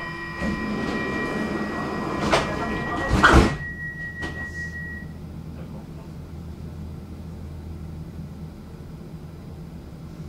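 Metro car's sliding doors working: a rushing noise builds, then two loud thuds about a second apart. A steady electronic tone sounds over them and cuts off a few seconds in. After that a quieter steady hum runs on.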